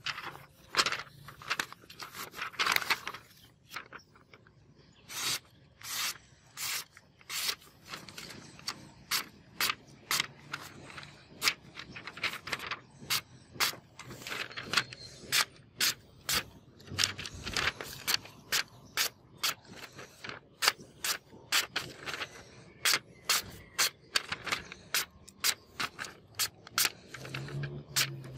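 A sharpened steel hunting knife slicing through a hand-held sheet of paper, many short slicing cuts in quick succession, about one or two a second.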